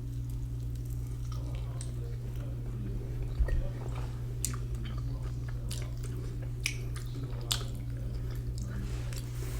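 A person biting into and chewing a scored, pan-fried sausage close to the microphone, with a few short sharp mouth clicks scattered through. A steady low hum runs underneath.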